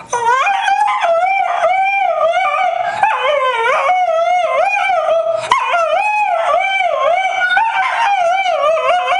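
A dog howling loudly and almost without a break, its pitch swooping up and down over and over in a warbling, sing-song way.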